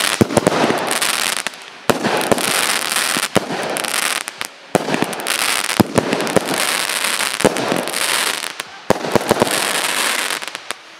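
Fireworks going off in quick succession: many sharp bangs over a dense crackle, coming in several waves with short lulls between them.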